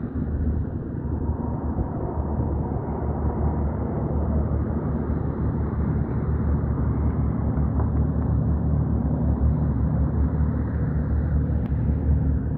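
Steady low rumble of distant engines, with wind buffeting the microphone.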